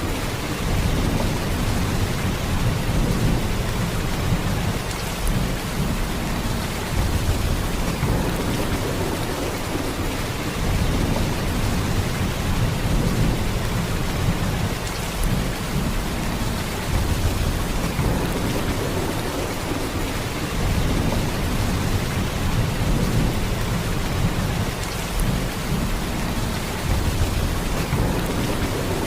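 Heavy rain falling in a steady downpour, a dense even wash of sound with a deep low rumble that swells and eases slightly every few seconds.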